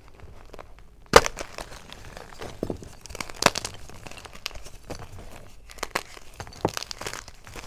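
Hard blocks of Xtraining gym chalk, dusted with glitter, being crushed and snapped between the fingers: sharp dry cracks with crumbly crunching in between. The loudest snap comes about a second in, another comes a couple of seconds later, and a few more crunches come near the end.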